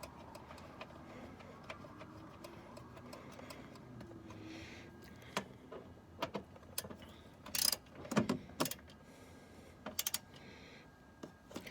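Sharp metallic clicks and clinks of a hand-turned Torx socket driver working a seat bolt, sparse at first and then coming in irregular clusters in the second half.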